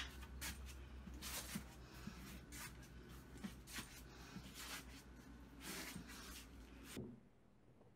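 A cat eating from a bowl: faint, irregular scratchy noises over a steady low hum, stopping abruptly about seven seconds in.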